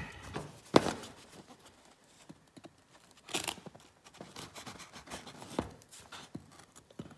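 Folding knife cutting through fiber tape on small cardboard boxes: short scratchy slicing sounds and clicks, with knocks as the boxes are handled on a wooden table, the sharpest knock about a second in.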